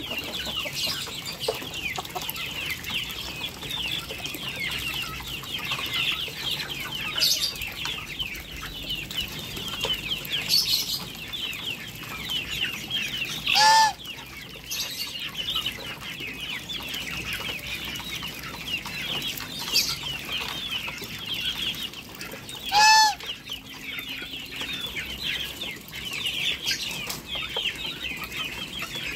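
Flock of domestic geese and muscovy ducks feeding, with a steady high chatter of small calls throughout. A goose honks loudly twice, about 14 seconds in and again about 23 seconds in.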